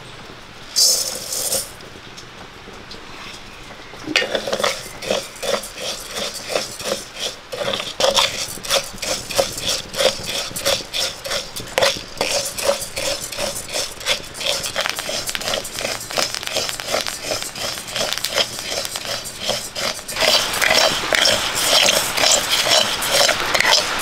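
Matta rice dry-roasting in a metal pan over a wood fire, stirred with a wooden spatula: the grains rattle and scrape against the pan in quick repeated strokes, starting about four seconds in and getting louder near the end. About a second in, a metal pan is set down on the stove with a short clank.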